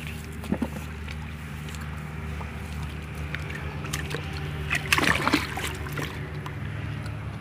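A motor runs steadily with a low hum throughout, under brief splashing and rustling as hands work in a shallow water-filled hole in the grass; the loudest splashing comes about five seconds in.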